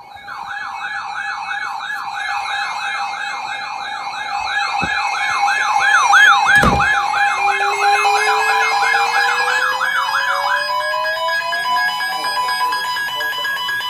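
Several weather alert radios sounding their alarms at once. A fast warbling siren-like tone stops about ten and a half seconds in, over steady alert tones, and a slow rising wail climbs toward the end. A single thump comes about six and a half seconds in.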